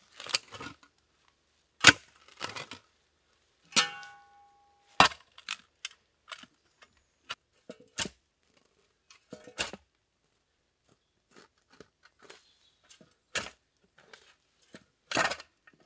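Long-handled garden hoe chopping and scraping through leaf litter, roots and soil, in irregular sharp strikes every second or two. One strike about four seconds in rings briefly.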